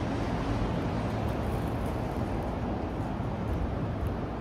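Steady city street ambience: a low rumble of road traffic.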